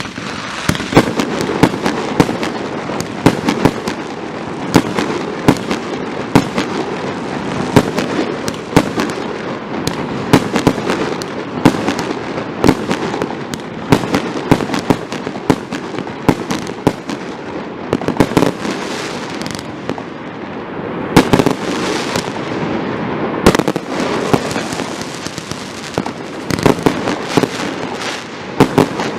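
A 56-shot firework cake firing continuously: a dense run of sharp launch thumps and aerial bursts over a steady crackle, with a few louder reports in the second half.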